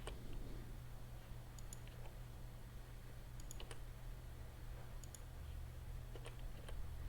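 Sparse clicks of a computer mouse and keyboard, in small groups every second or two, over a steady low hum.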